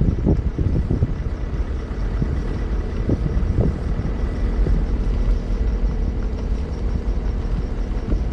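Low, steady rumble of a car driving along a road, heard from outside its side window, with wind gusting on the phone's microphone.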